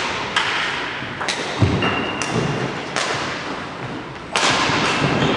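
Sharp hits ringing out in a large, echoing hall, one about every second, irregularly spaced: a ball or shuttle struck back and forth in a rally.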